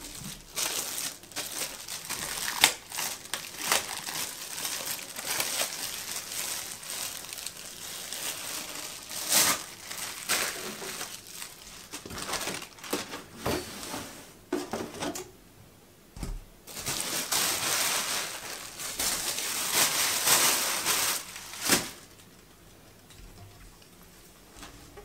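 Plastic packaging crinkling and rustling as vacuum cleaner parts are unwrapped and handled, with many sharp clicks of hard plastic parts. It pauses for about a second past the middle and goes much quieter for the last few seconds.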